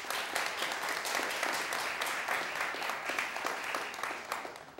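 Studio audience applauding, a dense patter of many hands clapping that holds steady and then fades away near the end.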